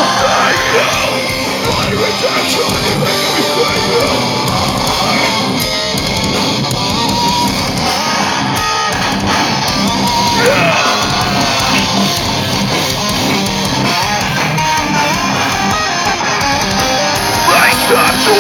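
Heavy rock band playing live, with distorted electric guitars and drums. The music is loud and continuous throughout.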